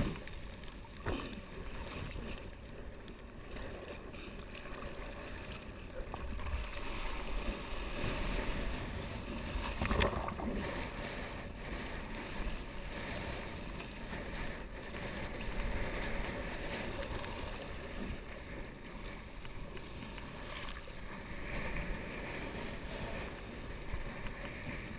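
Choppy water sloshing and rushing around a kiteboarder's action camera, with wind on the microphone. A few louder splashes stand out, the biggest about ten seconds in.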